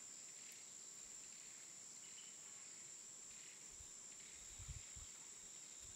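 Near silence: faint room tone with a steady thin high-pitched hum, and a few faint low bumps about four and a half seconds in.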